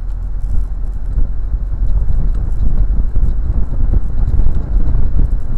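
Towed dune buggy rolling along the road: a loud, steady low road rumble with irregular light rattling and knocking from the buggy's loose body and running gear.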